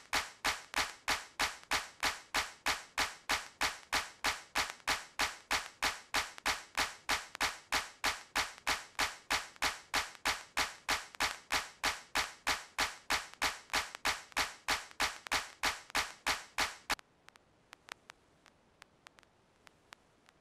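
Sharp, evenly spaced clicking, about three clicks a second, that stops abruptly about 17 seconds in, leaving a few faint scattered ticks.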